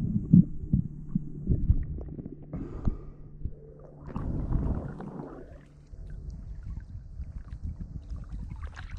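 Muffled underwater sound picked up by an action camera in its housing. There are irregular low knocks and thuds over a faint steady hum, and a spell of rushing noise from about four to five and a half seconds in.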